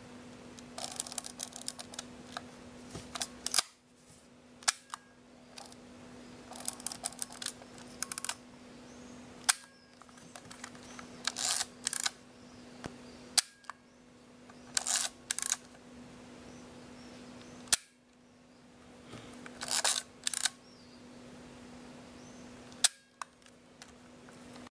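Konica POP 35 mm compact camera being wound on and fired: short runs of rapid ratcheting clicks from the film advance, each followed by a single sharp shutter click, repeated several times as blank frames are shot off after loading the film.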